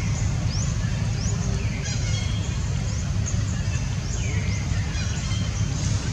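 Birds calling: quick high rising chirps and thin downward-sliding whistles that repeat every second or so, over a steady low rumble.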